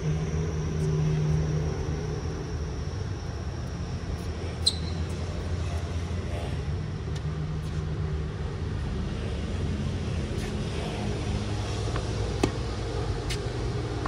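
Steady low rumble of city traffic, with a few sharp pops of a tennis ball being struck by a racket, the loudest about four and a half seconds in and again about twelve and a half seconds in.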